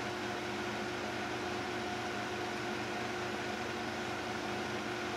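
Steady mechanical hum with a fixed whine and an even hiss, unchanging.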